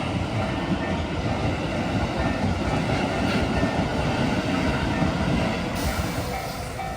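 Keikyu electric train passing at speed over a level crossing: a steady, heavy rumble of wheels on the rails that eases slightly near the end.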